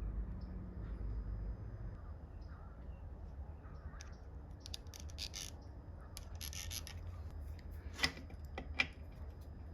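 Small metal tools being handled on a workbench: two brief scraping rasps in the middle, then two sharp metallic clicks near the end, over a low steady hum.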